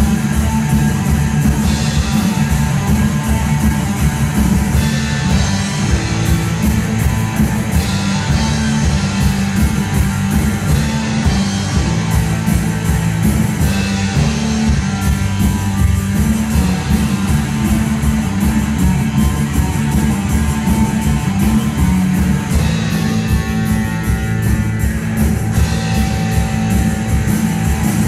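Live rock band playing, mostly instrumental: electric guitars, bass guitar and drum kit, loud and continuous.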